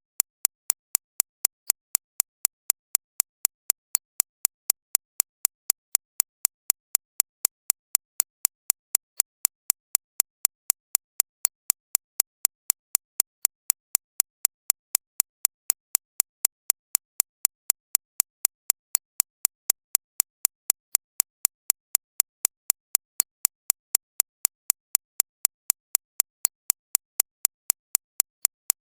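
Digitally synthesized recreation of a shockwave therapy (ESWT) machine's impact pulses: sharp, bright clicks repeating evenly about three times a second, with silence between them and most of the sound in the high treble.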